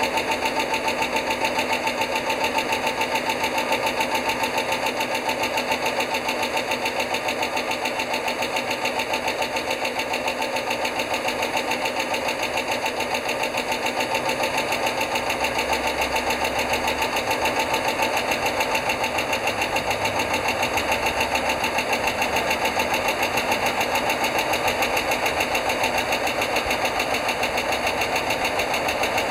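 American school bus engine idling steadily with a rapid, regular ticking. The owner suspects a failing hydraulic lash adjuster (lifter), or perhaps the thicker oil or the cold weather.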